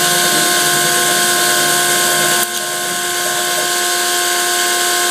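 CNC-converted Grizzly G0704 milling machine cutting Delrin sheet with an end mill: a steady whine at several fixed pitches over the hiss of the cut. A short click comes about halfway through, after which the sound is slightly quieter.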